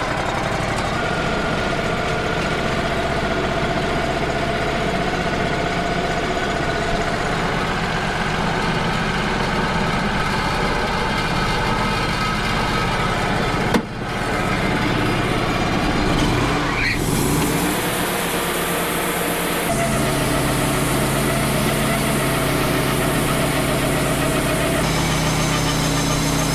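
Wood-Mizer LT35 HD portable band sawmill running, its engine holding a steady note as the band blade cuts through a large oak log. There is a brief break about 14 seconds in, a short rising whine a few seconds later, and the engine settles into a different steady note about two-thirds of the way through.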